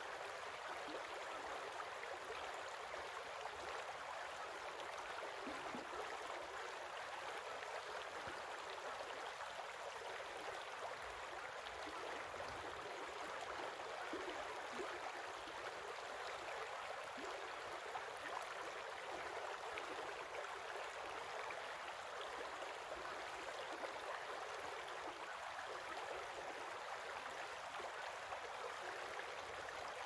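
Creek water flowing steadily over a shallow, stony riffle.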